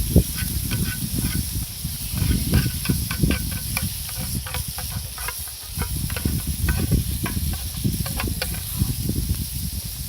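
Meat sizzling and crackling on an iron plate over a campfire, a steady hiss with many sharp pops, over a loud, uneven low rumble.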